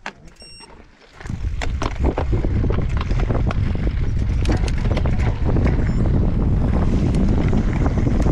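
Wind rumbling on the microphone and mountain-bike tyres and frame rattling over a gravel singletrack, with many small clicks and knocks from stones. The noise sets in about a second in, as the ride gets going, after a short beep.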